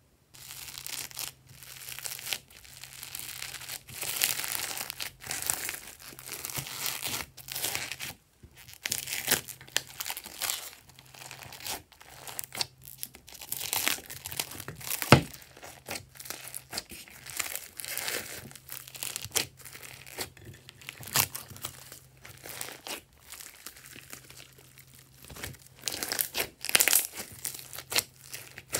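Foam beads crunching and crackling as hands squeeze and fold them into clear slime, in a string of short crinkly bursts. A single sharp click about halfway through stands out as the loudest sound.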